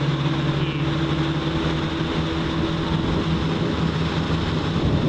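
A motorboat engine running at a steady speed while under way, with an even rush of wind and water over it.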